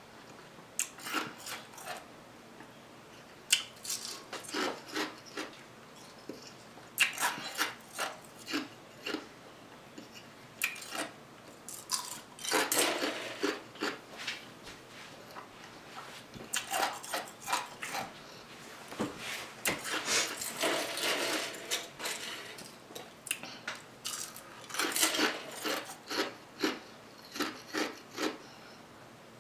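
Eating and dish-handling noises at a meal table: irregular clusters of short clicks and clatter, coming in bursts every couple of seconds.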